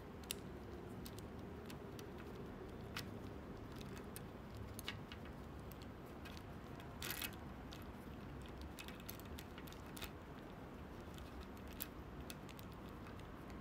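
Small plastic clicks and taps of speedcube pieces being slid and fitted by hand onto the cube's plastic core: a few sharp single clicks spread a couple of seconds apart, with a short clatter about seven seconds in, over faint room hiss.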